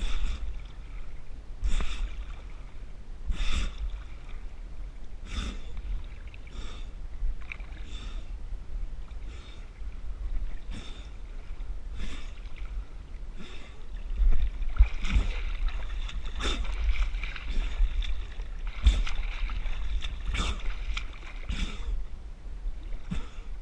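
A swimmer's strokes splashing in river water, about one every one and a half to two seconds, with hard breathing between them from a swimmer who is exhausted. A low rumble runs underneath and grows louder about two-thirds of the way in.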